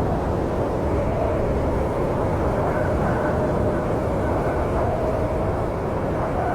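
Snowstorm wind blowing in a steady, low rush with a faint wavering whistle, used as sleep ambience.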